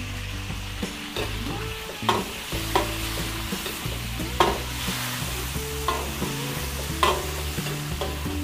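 Meat frying in hot oil in a pan, a steady sizzle as it browns, stirred with sharp scraping spatula strokes about once a second.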